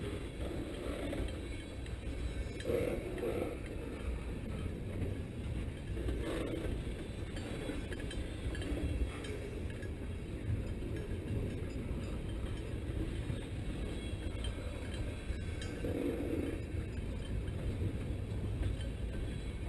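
Railroad tank cars rolling slowly past on the rails: a steady low rumble with intermittent metallic clinks and clanks from the wheels and trucks.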